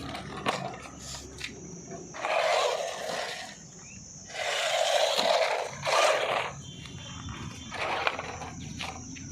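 High-speed Tygatec Super Sonic RC car making runs: several noisy surges of motor and tyres, the longest two each about a second long, over a thin steady high whine.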